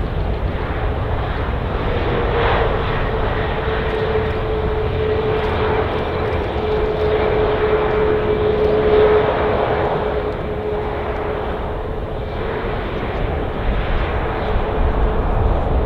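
Jet airliner's engines running as it passes: a steady rumble with a whining tone that sinks slowly in pitch.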